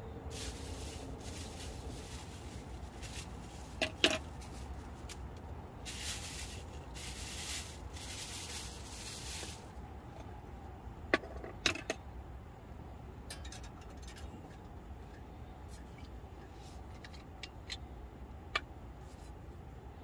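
Clear plastic bag crinkling in two bursts as it is handled and opened, with a few sharp knocks of objects such as scissors and chopsticks set down on a wooden tabletop, over a low steady hum.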